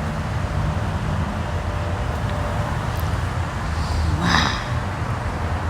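Steady low rumble of distant road traffic, with one short harsh bird call about four seconds in.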